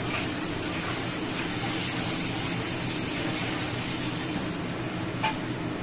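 Water poured from a steel mug into a hot wok of frying red masala, sizzling steadily.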